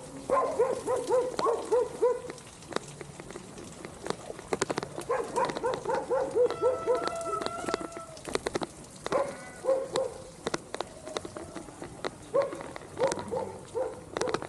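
Huskies whining and yipping in quick runs of short cries, with one longer held whine in the middle. Raindrops tick sharply throughout.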